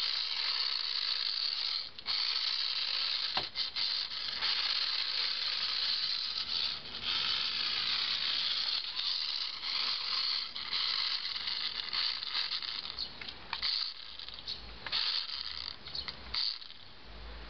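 Small electric motor and gears of a toy radio-controlled Ferrari F2005 model whirring at a high pitch as it drives and spins on wet tiles. The whir drops out briefly a few times.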